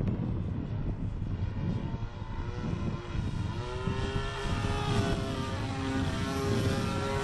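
Engine and propeller of a Yak 54 radio-controlled model aerobatic plane in flight. A steady engine note with many overtones comes through clearly from about halfway, over a low, noisy rumble.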